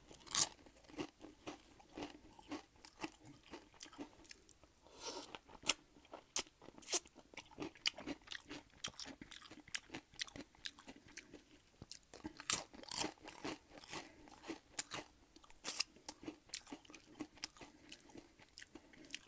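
A person chewing crunchy food close to the microphone, with many sharp, irregular crunches throughout.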